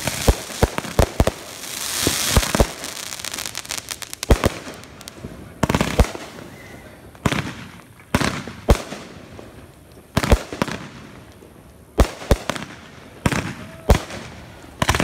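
Aerial fireworks going off. A quick string of sharp bangs at the start runs into a crackling hiss about two seconds in, then single booms and short pairs of bangs come every second or two.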